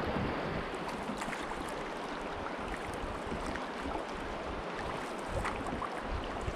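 River water rushing and lapping around a canoe under way, with scattered small splashes and wind on the microphone.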